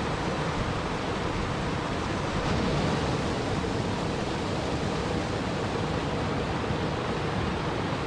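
Small waterfall spilling over boulders into a river: a steady rush of falling and churning water.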